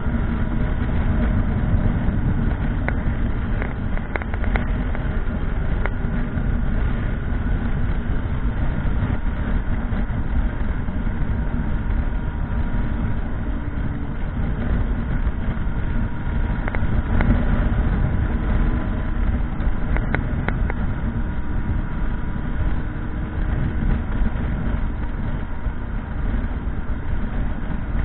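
Motorcycle running steadily on the move, a continuous low rumble with no clear revving or gear changes.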